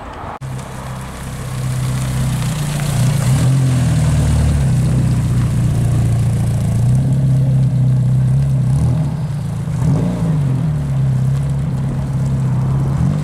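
Mk1 Ford Escort's engine running, picking up revs about two seconds in as the car pulls away slowly, with the engine pitch wavering up and down near ten seconds.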